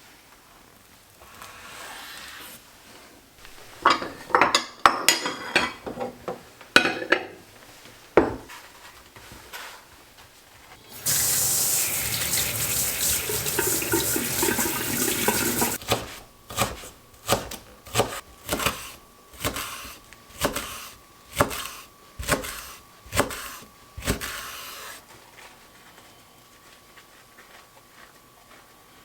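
Kitchen preparation sounds. Clinks and knocks of dishes and utensils come first, then a tap runs for about five seconds near the middle. A steady series of about a dozen evenly spaced knocks follows, a little over one a second.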